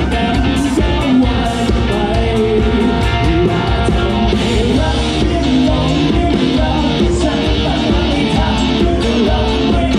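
Live band playing: drum kit, electric guitar and bass under a woman singing, loud and continuous.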